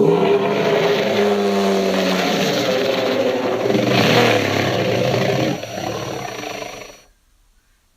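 Tyrannosaurus rex roar sound effect: one long, low, gravelly roar of about seven seconds that starts suddenly, drops in the last couple of seconds and fades out.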